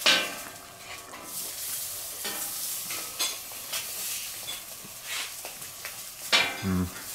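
Weißwurst sausages sizzling on a hot griddle plate: a steady hissing crackle with a few sharp clicks. A short low hum of a voice comes near the end.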